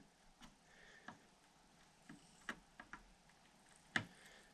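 Near silence broken by about half a dozen faint, irregular small clicks, the sharpest about four seconds in: metal tools ticking against a MOSFET and its legs as it is desoldered from a scooter controller board with a soldering iron and pliers.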